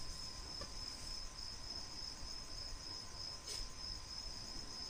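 Crickets chirping faintly, a steady high pulsing trill, with a faint click about three and a half seconds in.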